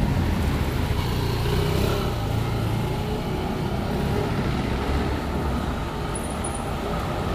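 Yamaha Aerox 155 scooter's single-cylinder engine idling, a steady low rumble with no change in pitch.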